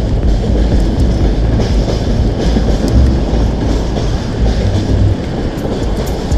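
Steady rumble and wind buffeting from a bicycle-mounted camera while riding on a wet path, with light rattling clicks from the bike.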